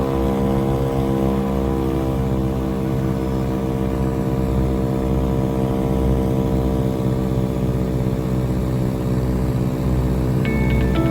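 Ford Tri-Motor's three radial engines running steadily in cruise, their tones beating slowly against each other. Music comes in near the end.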